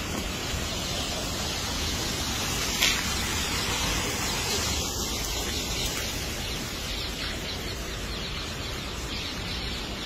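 Steady rushing noise with no clear pitch, with one sharp knock about three seconds in.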